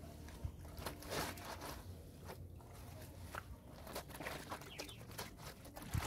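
Wet clothes being scrubbed and handled in a concrete laundry tub: irregular rubbing of soaked fabric with small splashes of water.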